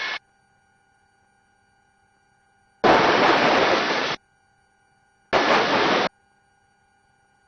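Helicopter intercom opening twice with no one speaking, each time passing a loud rush of noise. The first lasts about a second and a half and the second under a second, and both switch on and off abruptly. Between them is near silence with a faint steady hum.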